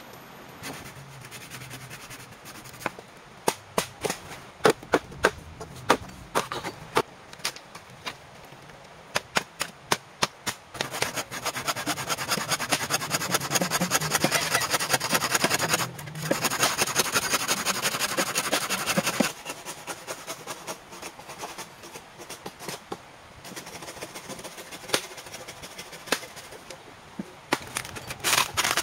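A series of sharp wooden knocks, then a hand saw cutting through a green bamboo pole in fast, steady strokes for about eight seconds, with a short pause partway through; scattered knocks follow.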